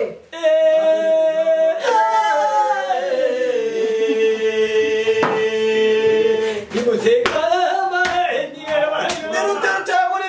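A man singing long drawn-out notes: a held note, a slow slide down, then a lower note held for about three seconds, followed by quicker wavering phrases near the end. A few sharp clicks cut through.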